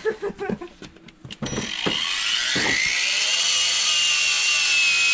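Cordless power tool starting up about a second and a half in, its motor whine rising in pitch and then running steadily. Right afterwards it won't do the job and its battery needs charging.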